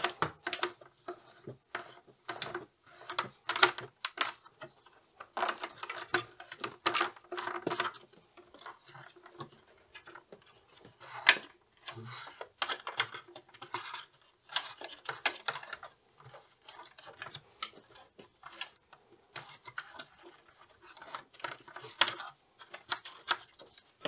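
Irregular clicks, taps and rubbing as an earth cable and flexible conduit are pushed and pressed into white plastic cable trunking by gloved hands.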